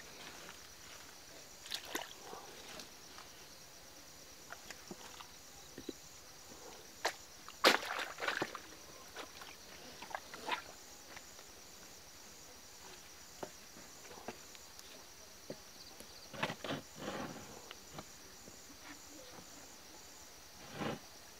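Night insects, crickets by the sound of it, chirring in a steady high pulsing drone, under scattered footsteps, rustles and sharp knocks as someone moves about and handles their gear. The loudest knocks come about eight seconds in and in a cluster later on.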